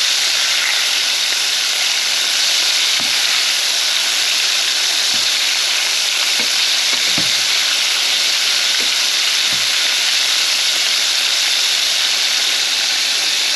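Cornstarch-coated shrimp deep-frying in hot oil, a steady sizzle at full boil. A few faint knocks are heard as metal tongs turn the pieces in the pan.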